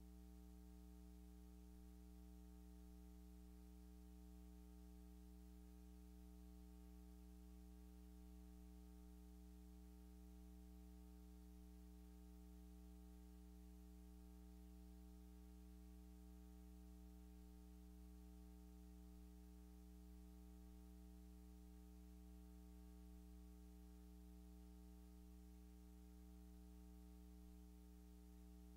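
Near silence: a faint, steady electrical hum of a few low tones, unchanging throughout.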